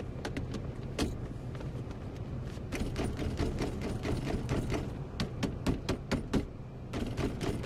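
A 2007 Chevrolet Trailblazer's plastic center console lid and its latch being worked by hand: a single click, then a quick run of sharp plastic clicks and knocks as the closed lid is pressed and rattled to test that the repaired latch holds.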